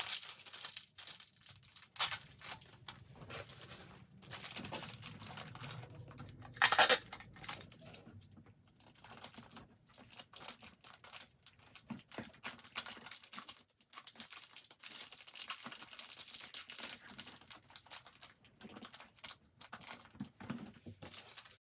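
Crinkling and rustling of plastic packaging and gift-basket materials being handled, with scattered light clicks and two sharper knocks, the loudest about seven seconds in.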